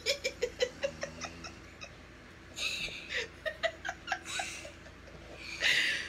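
A woman and a girl laughing hard. It starts with a quick run of short 'ha' bursts, then turns into breathy, wheezing laughs and gasps for air.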